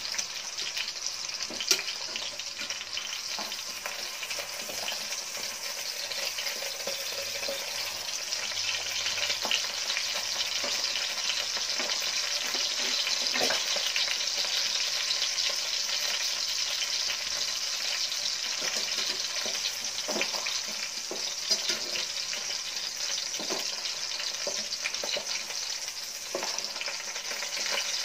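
Whole chicken sizzling and crackling in hot oil in a steel pot as it is lightly browned, a steady frying hiss. A few sharp clicks stand out, about two seconds in and again around the middle.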